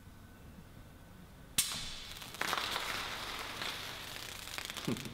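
A bottle of ancestral-method sparkling wine being opened: a sharp pop about a second and a half in, then a few seconds of hissing fizz as the gas pressure from its in-bottle fermentation escapes.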